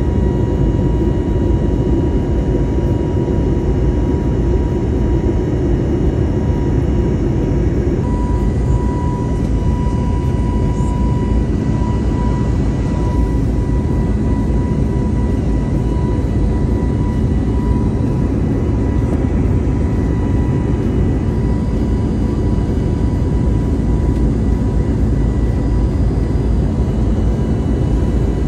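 Jet airliner cabin noise in flight: the engines and rushing air make a steady roar with a faint whine held on one pitch. The sound shifts slightly about eight seconds in.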